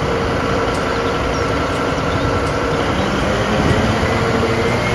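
Large mining haul truck's diesel engine running steadily with a low rumble while its dump body is raised.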